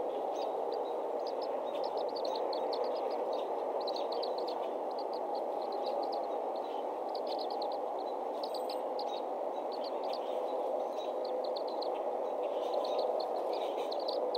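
Birds chirping in quick runs of short, high notes over a steady low rushing background from the outdoor nest-cam microphone.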